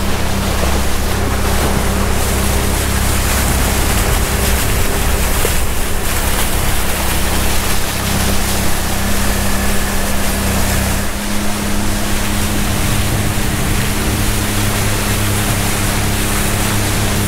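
Boat engine running steadily under way, with water washing past the hull. The engine's low hum changes about eleven seconds in.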